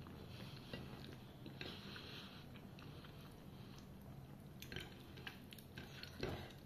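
Faint sounds of a person eating soft dhido by hand: quiet chewing with scattered soft mouth clicks and smacks.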